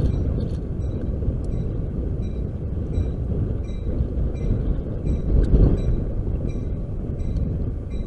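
Approaching double-deck passenger train: a steady low rumble of the oncoming train that swells louder about five and a half seconds in, with a short high ding repeating about twice a second above it.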